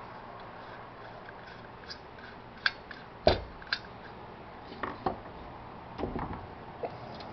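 Small metal burner plates of a Coleman camp stove's burner assembly clicking and clinking as they are worked loose and handled. There is a scattering of light clicks, with one heavier knock about three seconds in.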